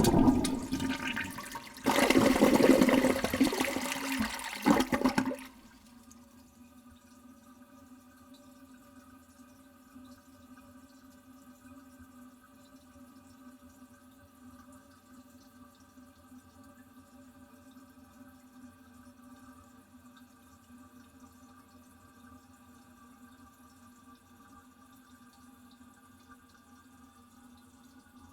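Toilet flushing very close up: a loud rush of water that surges again about two seconds in and cuts off after about five seconds. A faint, steady hum of the tank refilling follows.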